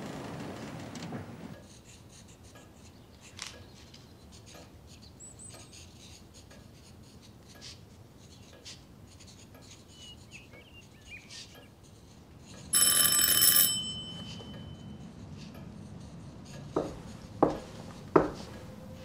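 A doorbell rings loudly for about a second, then three sharp knocks on a door follow, a little under a second apart. Before the bell there is only quiet room tone with faint ticks.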